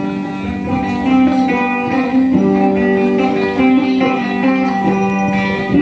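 Music played on a plucked string instrument: a repeated plucked melody over held low notes, with a steady low drone note coming in a little over two seconds in.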